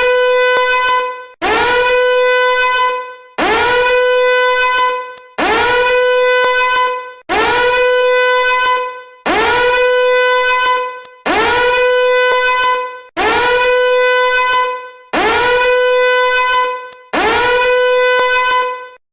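A looping novelty alarm sound: a loud tone that slides up into a held note and fades, repeated about every two seconds, about ten times, cutting off near the end.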